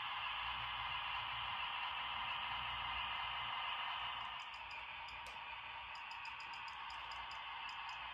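HO scale model diesel switcher locomotive running along the track: a steady whirring, rolling hiss with a low rumble, easing off a little about four seconds in, with faint light ticks after that.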